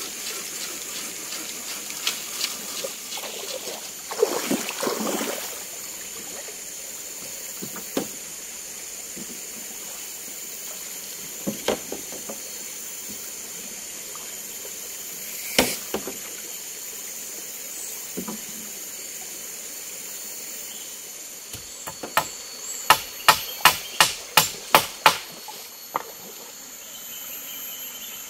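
Woodwork at a camp by a stream: scattered single sharp knocks and a brief scrape, then near the end a quick run of about ten loud knocks, roughly three a second, as wood is struck. Under it runs a steady hiss of flowing water with a thin, steady high tone.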